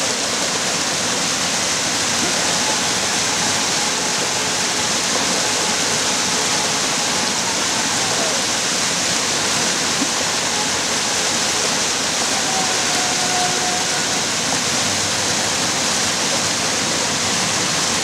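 River water rushing steadily down a small waterfall over rocks, close up.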